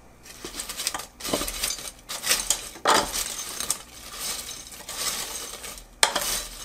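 Kitchen tongs tossing cooked french fries in an air fryer's ceramic-coated basket: irregular scraping and rustling of the fries, with clinks of the tongs against the basket.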